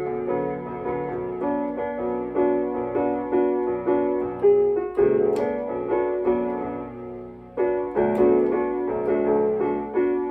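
Piano playing an instrumental passage of repeated struck chords, about two a second. Near the end it drops away briefly, then comes back with a strong chord.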